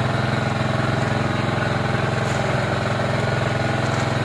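A small engine running steadily at an even idle, with a fast regular firing rhythm and no change in speed.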